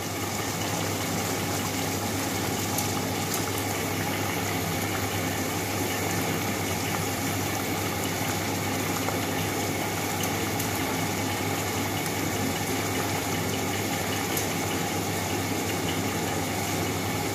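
Fish pieces simmering in masala gravy in a wok, a steady bubbling, with a constant low hum underneath.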